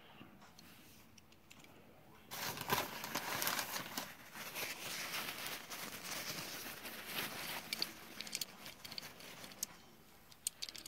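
White packing paper being unwrapped and crumpled by hand: a dense crinkling and rustling that starts about two seconds in and dies down near the end.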